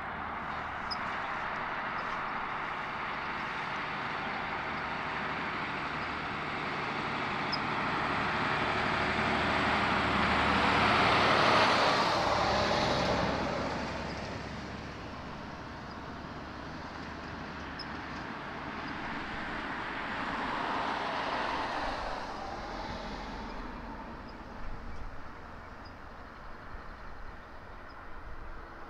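Road traffic: a steady hiss of vehicles passing, with one loud pass that swells and fades about halfway through and a weaker one about two-thirds of the way through.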